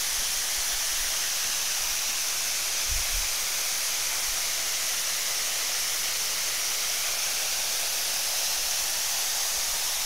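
Waterfall about 15 to 20 metres high pouring over limestone rock into a plunge pool: a steady, even rush of falling water.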